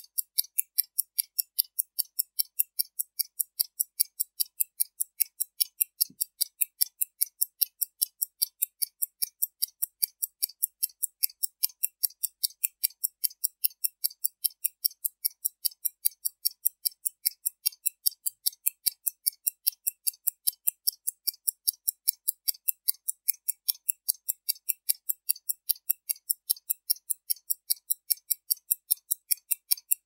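1953 ZIM mechanical wrist watch's 15-jewel movement ticking, the escapement beating out rapid, even, sharp high-pitched ticks.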